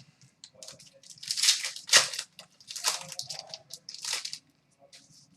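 Trading cards and their plastic packaging handled by hand: several short crinkling, sliding rustles as cards are flipped and moved.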